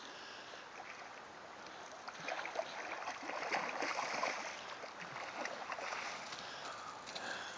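Coho salmon splashing in shallow river water as it is played in and beached on a gravel bar, over the steady flow of the river. The splashing picks up about two seconds in, is loudest around the middle and then eases.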